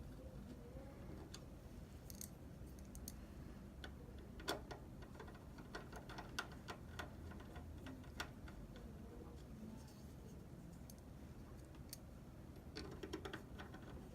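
Faint, scattered clicks and light ticks of a Torx screwdriver turning the small screws that hold an Xbox One S network card, with a quick run of clicks near the end.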